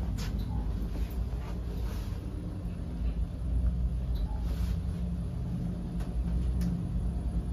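Elevator car travelling, heard from inside the cabin: a steady low rumble, with a few faint clicks.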